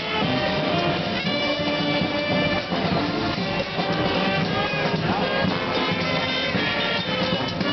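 Street brass band playing, several horns holding notes together over percussion.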